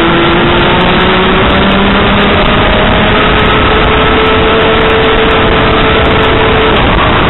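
Rotax Max Junior 125cc two-stroke kart engine at full throttle, heard from onboard: its buzz climbs in pitch over the first second or two, holds steady, then drops near the end as the throttle comes off for a corner. Heavy wind noise rushes under it.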